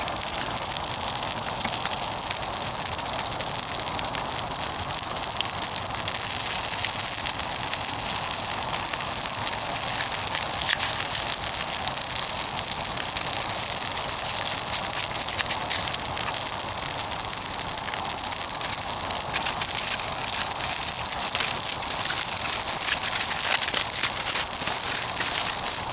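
Burgers frying over a wood fire in a portable wood-burning camp stove: a steady sizzling hiss with scattered crackles from the burning wood.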